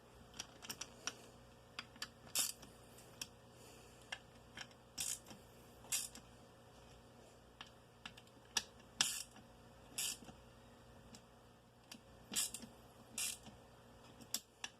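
Hand ratchet clicking in short, irregular spurts as the crankcase bolts are tightened by hand, with a few louder sharp clicks and clacks of tool on metal.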